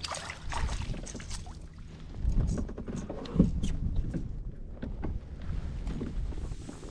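A landing net holding a fish is lifted out of the water and brought over a kayak: scattered knocks, clatter and splashes, the loudest knock about three and a half seconds in, over a low rumble of wind on the microphone.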